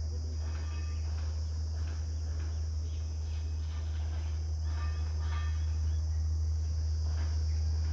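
Insects, crickets or similar, chirring steadily in a high band over a steady low rumble, with a few faint short chirps around the middle.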